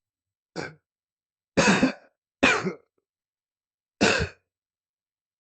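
A person clearing their throat: a short faint rasp, then three louder throat-clearing bursts, two close together and the last after a pause of over a second.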